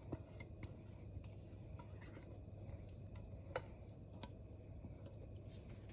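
Faint light scraping and scattered soft ticks of kitchen utensils as sweetened condensed milk is added to the pan, over a low steady hum.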